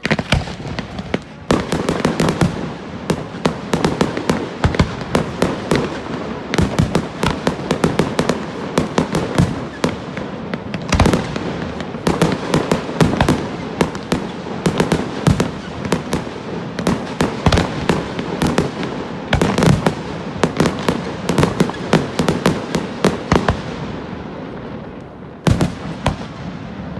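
Fireworks display: a dense barrage of bangs and crackling that starts suddenly, many reports a second, thinning out near the end with a few last bangs.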